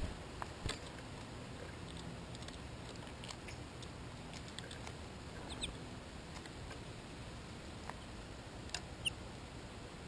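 American goldfinches feeding at a clear plastic seed feeder: scattered light taps and clicks of beaks, feet and seed on the feeder, with a couple of short high bird calls about halfway through and again near the end, over a steady hiss.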